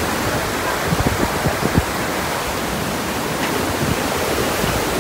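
Steady rushing of Iguazú Falls, with a few dull low thumps about a second in.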